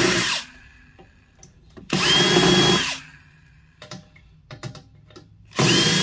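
Power drill with a star (Torx) bit backing screws out of a microwave's sheet-metal back panel, in short runs. The motor whines up to speed and runs for about a second at a time: one run is ending as the sound begins, one comes in the middle, and another starts near the end. Light clicks of handling fall between the runs.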